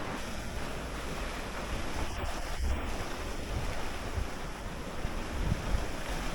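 Surf washing onto the beach, a steady rush, with wind buffeting the microphone in uneven low rumbles.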